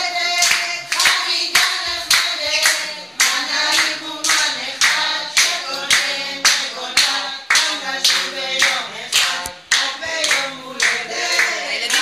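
A group of people singing a birthday song together while clapping along in a steady beat, about two claps a second.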